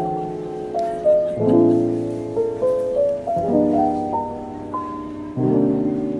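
Background music: sustained chords changing about every two seconds, with a simple melody on top.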